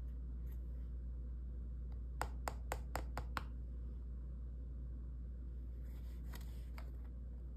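A quick run of six light clicks or taps, about five a second, over a low steady hum, with two or three fainter clicks a few seconds later.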